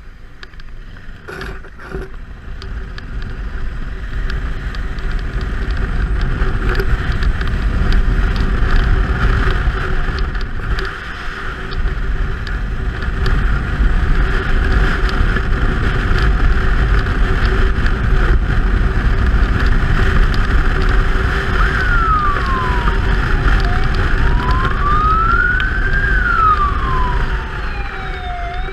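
Ambulance motorcycle riding at speed, its engine running under heavy wind rush on the microphone. About 22 seconds in, the motorcycle's siren starts a slow wail, sliding down and back up roughly every four and a half seconds.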